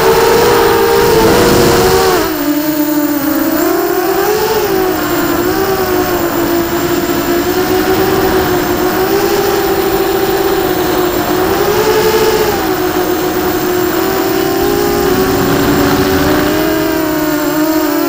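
QAV250 quadcopter's four brushless motors and propellers whining, heard up close from a camera on the quad, their pitch swooping up and down with throttle changes. A low rumble sits under the whine for the first two seconds.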